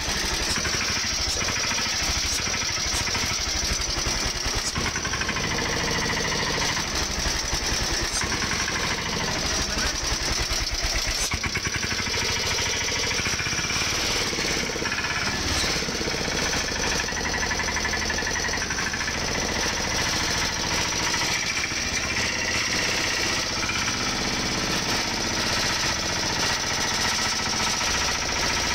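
Single-cylinder diesel engine of a Yuvraj 215 mini tractor idling steadily, with a fast, even beat.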